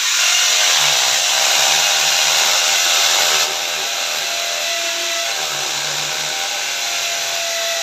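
Corded electric drill running continuously, its bit boring into the wall. The motor's steady whine drops a little in loudness a little after three seconds in.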